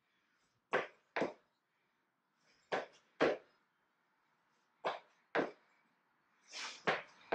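Feet landing on the floor during jumping lunge jacks: pairs of quick thuds about half a second apart, repeating about every two seconds.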